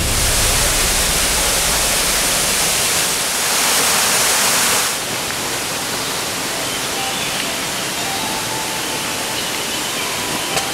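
Waterfall rushing, loudest for the first five seconds, then dropping to a softer, steady rush of water, with a few faint short whistled notes in the second half.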